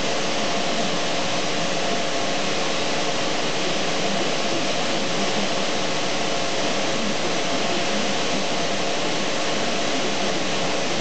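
A steady, even rushing noise of air being moved, like a fan or blower motor running, with a faint hum of a few steady tones underneath.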